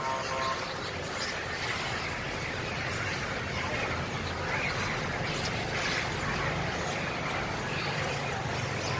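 A large troop of long-tailed macaques chattering and squealing as a mass, a dense din of overlapping calls, with car engines idling low underneath from about halfway.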